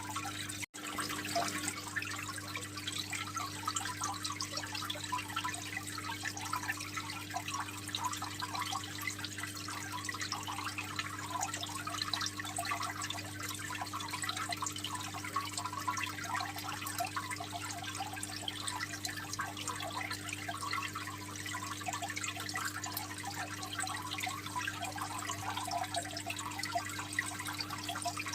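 Aquarium water trickling and splashing steadily, over a steady low hum. The sound cuts out for an instant just under a second in.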